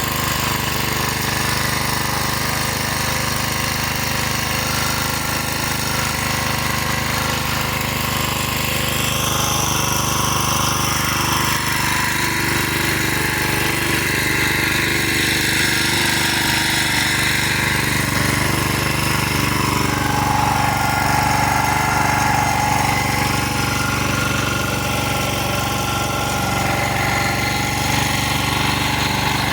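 Engine of an irrigation water pump set running steadily with a fast, even mechanical thumping.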